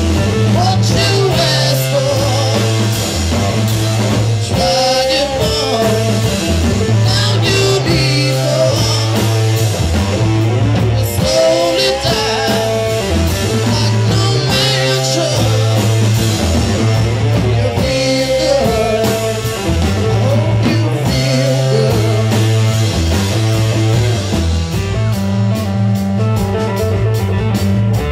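Live rock trio playing: electric guitar, bass and drum kit at full volume. A stepping bass line runs under bending lead guitar lines.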